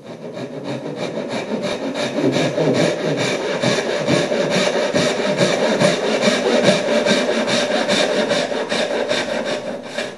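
Japanese pull saw cutting down into the end of a wooden board in quick, even strokes, sawing the tail cuts of a half-blind dovetail down to the scribed line. The strokes stop abruptly at the end.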